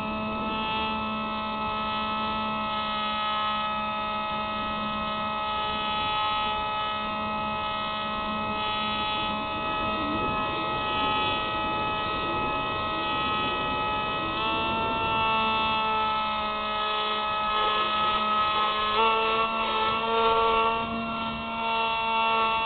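Electric motor and propeller of a Spyhawk FPV model plane whining steadily, heard through the onboard camera's microphone. The pitch steps up slightly about fourteen seconds in and again about nineteen seconds in as the motor speeds up.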